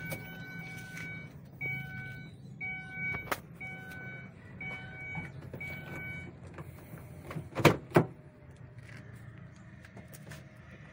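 A car engine idles steadily while an electronic warning chime beeps about six times at an even pace. A little past halfway come two sharp knocks in quick succession, the loudest sounds.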